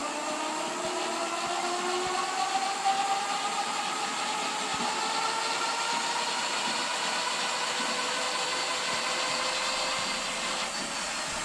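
Rear e-bike hub motor spinning the free rear wheel under thumb throttle: a turbine-like whine that climbs steadily in pitch as the wheel speeds up, then eases off about a second before the end.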